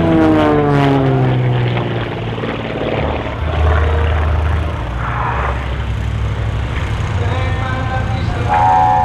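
Beechcraft T-34 Mentor's piston engine and propeller droning in aerobatic flight. The pitch falls over the first couple of seconds, then settles into a steadier, lower drone.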